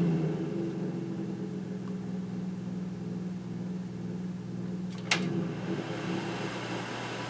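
Kaz V3100 evaporative humidifier's squirrel-cage fan motor running with a steady low hum, with a sharp click about five seconds in, after which the hum changes.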